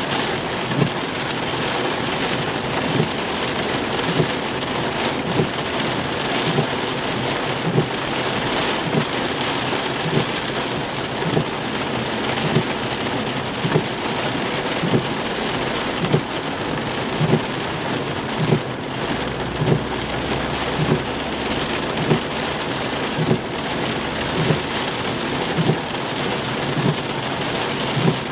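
Heavy rain falling hard on a car's windshield and roof, heard from inside the car. The windshield wipers sweep steadily, with a soft thump at each stroke about once a second.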